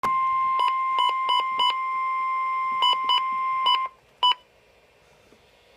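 NOAA Weather Radio warning alarm tone: a single steady high tone held for about four seconds, the signal that a warning (here a severe thunderstorm warning) is about to be read. Two groups of four short beeps sound over it, and one more beep follows just after the tone stops.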